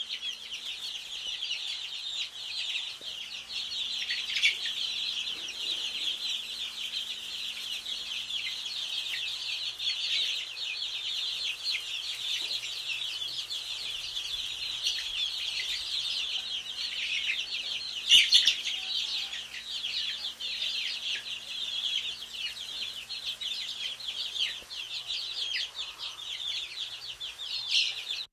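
A dense, unbroken chorus of many small birds chirping at once, short high calls overlapping without pause. A brief louder click cuts through about eighteen seconds in.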